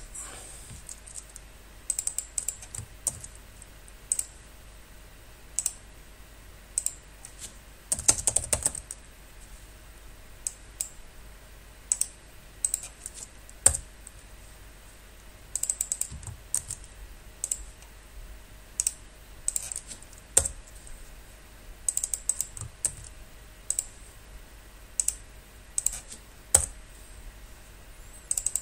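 Computer keyboard keys being pressed in short, irregular clusters of a few keystrokes every second or two, with a longer run of rapid keystrokes about eight seconds in, as commands are entered in a terminal.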